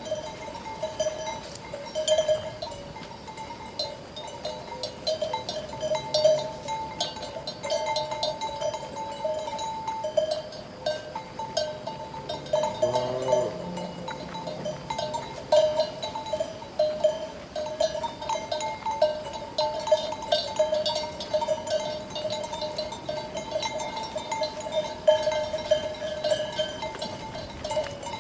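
Bells worn by a flock of sheep and goats, clanking continuously and unevenly. About halfway through there is one wavering bleat.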